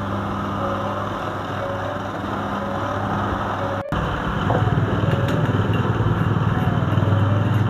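Kitchen extractor fan over the gas stove running with a steady hum. It breaks off for an instant about four seconds in and is louder afterwards.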